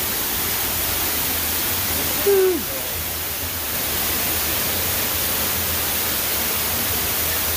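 Steady rush of running water echoing in a cave. About two seconds in, a person gives a short grunt that falls in pitch.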